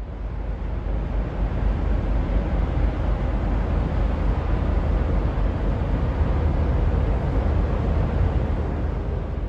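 Steady low rumble of the Algonova chemical/oil tanker's engine and machinery as the ship passes close by, with a faint steady hum over it. It fades in at the start and out near the end.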